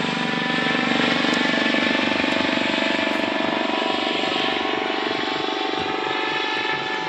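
Helicopter flying overhead: a rapid, even beat from the rotor blades under several steady engine tones, easing a little near the end.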